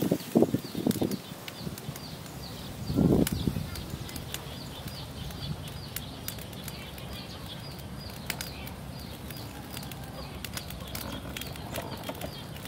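Cooking oil poured from a bottle into a stainless-steel wok, a soft steady trickle, under a rhythmic high chirping that repeats several times a second. A louder, low, short burst of sound comes about three seconds in.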